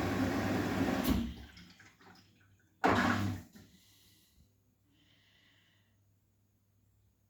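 Arçelik 9120M washing machine taking in water: a steady hiss with a low hum that shuts off abruptly about a second in, then a short, loud rush of water at about three seconds that quickly dies away.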